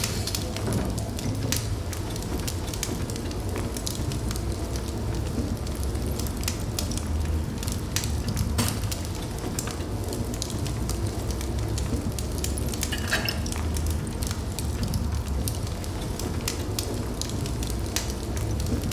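Wood fire burning in a fireplace: a steady low rush of flames with frequent sharp crackles and pops, a few of them louder.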